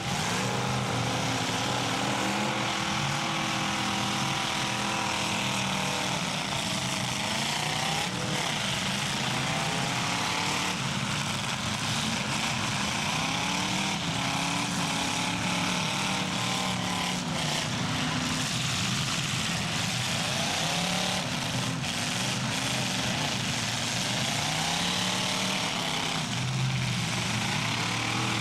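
Several demolition derby cars' engines revving up and down together, the pitch rising and falling over and over, with a few short knocks.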